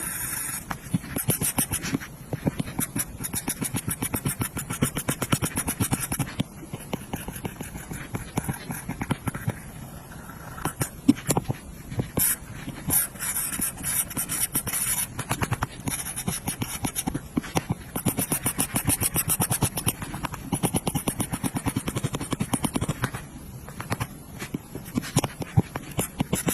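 Apple Pencil's plastic tip tapping and scratching rapidly on an iPad's glass screen in quick back-and-forth colouring strokes, many ticks a second.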